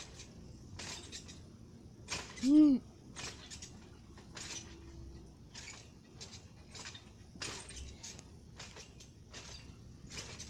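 Plastic toy animal figurine tapped and scuffed on gravelly pavement, a scattered string of short clicks. A short rising-and-falling hum from a person's voice about two and a half seconds in, the loudest sound.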